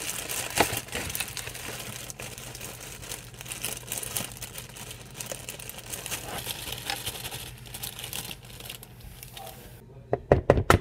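Plastic bag of dry cake mix crinkling and rustling as the mix is poured into a bowl, with many small clicks. A few loud sharp knocks near the end.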